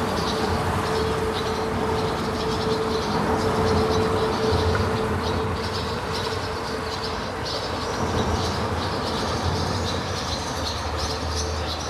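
Steady engine rumble with a constant droning hum, with no change in level.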